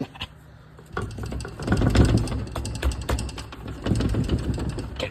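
Blown GM 4L80E automatic transmission being turned over, its broken internals grinding and clattering with rapid clicks in uneven surges starting about a second in: the sound of parts broken loose inside the failed gearbox.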